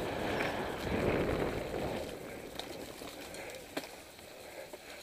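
Mountain bike riding a dirt forest trail: tyres rolling over the dirt with wind rushing past the camera, loudest in the first two seconds and easing off after. Scattered sharp clicks and rattles from the bike over the bumps, one stronger knock nearly four seconds in.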